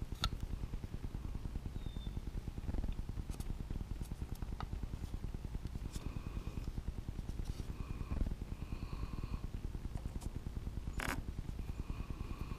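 A felt-tip marker squeaking on a wooden stick in several short strokes, over a steady low hum. A single sharp click comes near the end.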